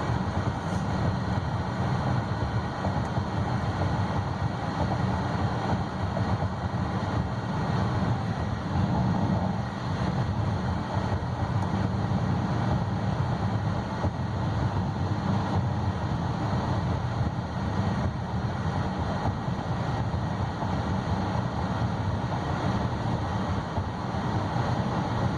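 Steady road and tyre noise with a low drone, heard from inside the cabin of a 2016 Buick Envision driving at road speed.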